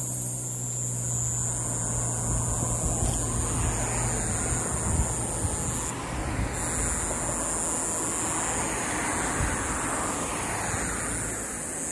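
Steady roadside ambience: a low hum and a wash of distant road traffic that swells twice, under a constant high hiss.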